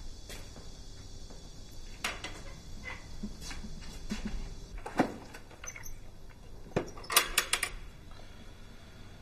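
Scattered sharp knocks and clicks of something being handled. The loudest knock comes about five seconds in, and a quick run of four or five clicks follows a couple of seconds later.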